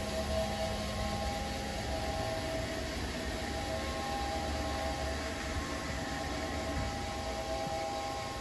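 2003 Haas SL-30T CNC lathe running, with a steady hum and hiss and several high whining tones from its motors that fade briefly near the middle and then come back.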